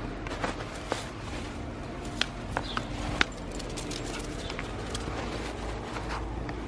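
Light metallic jingling and clinking of small metal pieces, a few sharp clicks, most of them between about two and three and a half seconds in, over a steady low rumble.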